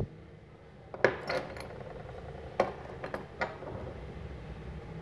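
Small metal earthing-strip holding clamps clinking and tapping against each other and the hard floor as they are handled and set down: a handful of light clicks between about one and three and a half seconds in.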